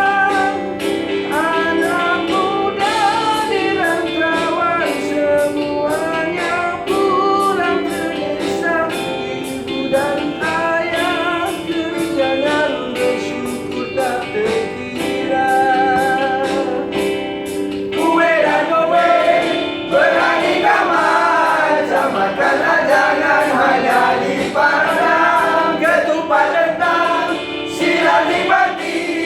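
Background music with singing: a sung melody over held accompanying notes and a steady beat, growing fuller and louder about two-thirds of the way through.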